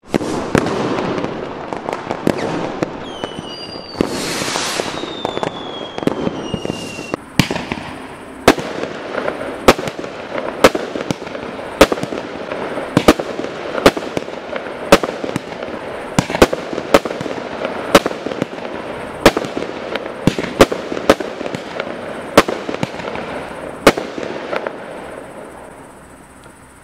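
Ardi 100% Feu Fire Color I, a 15-shot 20 mm firework battery, firing. Dense hissing crackle with several falling whistles over the first seven seconds, then sharp bangs about one a second until near the end, when it dies away.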